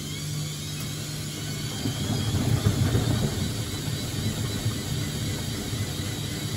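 Bosch WFF1401 front-loading washing machine on its spin, the drum and brushed motor running with a steady hum that grows louder and rougher about two seconds in before settling. The motor brushes are still a little bit loud.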